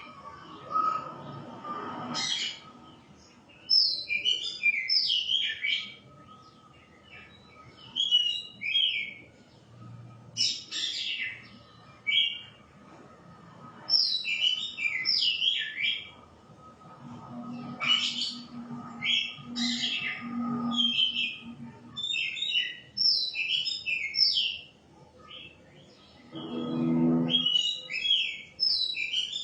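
Shama singing: loud phrases of quick, varied whistled notes, repeated every couple of seconds.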